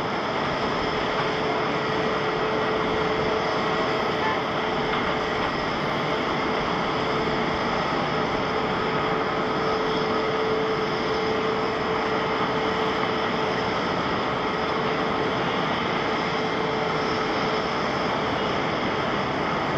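Jet engines of an Airbus A350-900, its Rolls-Royce Trent XWB turbofans, running as it lines up and begins its takeoff roll: a steady roar with a steady hum in it that fades out near the end.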